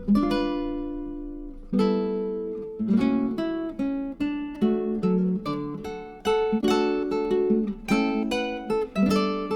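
Background music of a strummed and plucked acoustic guitar, with chords ringing out and quick picked notes.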